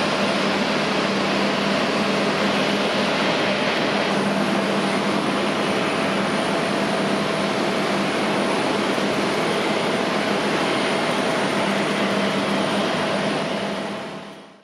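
Boeing 767-300ER's turbofan engines running at taxi power, a steady jet whine and rush with a low hum under it, fading out near the end.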